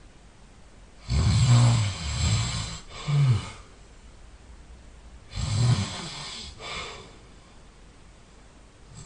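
A person snoring loudly in sleep: two long snoring breaths, the first about a second in and the next about four seconds later. Each is a low buzz with a breathy hiss and trails off into a shorter, weaker sound.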